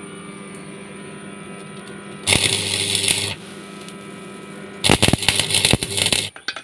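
Stick welding arc crackling and sizzling against steel in two bursts, the first about a second long and the second about a second and a half, over a steady electrical hum.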